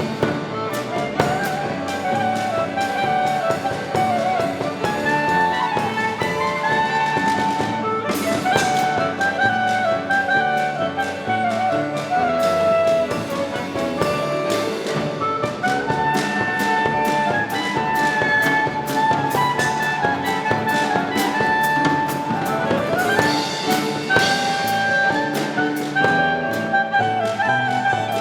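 Klezmer ensemble playing live: a wind or string melody that bends and slides in pitch, over piano, double bass and percussion keeping a steady beat.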